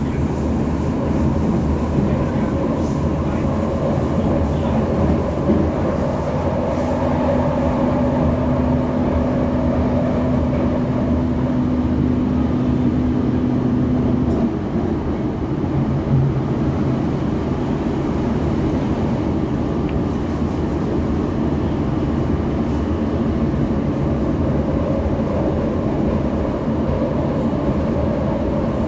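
Berlin U-Bahn F92 train running, heard from inside the car: a continuous rumble of wheels and running gear. A steady hum from the drive holds from about a quarter of the way in to about halfway, then stops.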